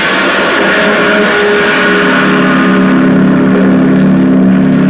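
Amplified harsh noise from a homemade electric noise instrument of steel rods with a pickup, a small motor held against the rods. About two seconds in, low steady feedback tones swell up and hold, loud.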